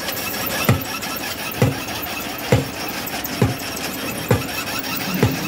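Batching-plant conveyor belt running under a sand hopper as wet sand feeds onto it, a steady machinery hum with a regular low thump about once a second.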